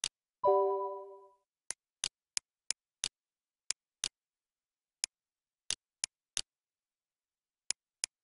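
Computer mouse clicking, single clicks and quick pairs at irregular intervals, over otherwise dead silence. About half a second in, a short pitched chime sounds and fades over about a second.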